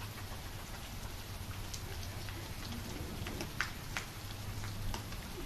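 Steady rain falling, with a few scattered sharp taps of drops.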